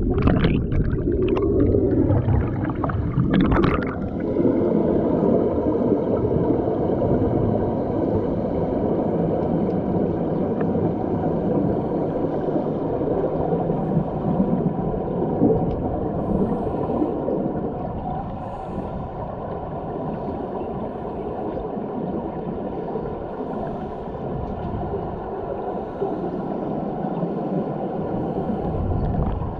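Underwater sound in a deep diving pool: a steady rushing and gurgling of scuba divers' exhaled bubbles, heard from underwater, with faint steady tones above it. The first few seconds hold sharper splashing and bubbling.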